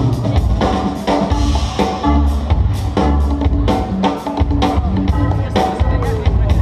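Loud music with a heavy drum beat and bass: breakbeat-style music played for breakdancing.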